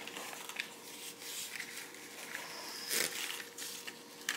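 Light rustling and handling noises from hands rummaging in a felt Christmas stocking and lifting out a packaged item, with one louder rustle about three seconds in.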